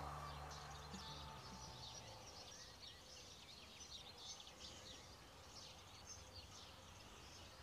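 Background music fading out over the first couple of seconds, leaving a quiet outdoor background with small birds chirping in quick, high notes.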